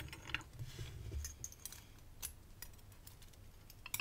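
Faint, scattered clicks and taps of small metal lock parts being handled as the discs and spacer of a Bowley Rotasera disc-detainer lock are fitted, with a sharper cluster of clicks near the end.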